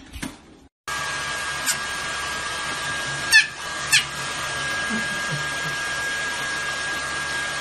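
A hair dryer blowing steadily with a high, even whine starts about a second in. Over it a small white puppy gives three short, high yips that fall in pitch.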